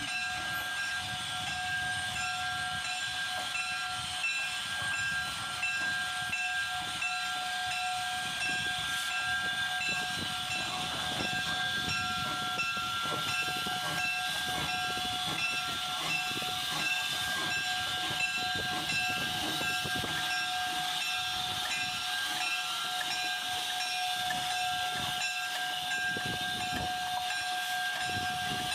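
Steam hiss from a small 1928 Vulcan 0-4-0 tank locomotive standing or creeping slowly, with several constant whistle-like tones that do not change.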